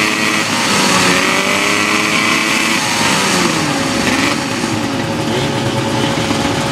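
Vintage two-stroke snowmobile engines running, one revved up and down several times so that its pitch rises and falls.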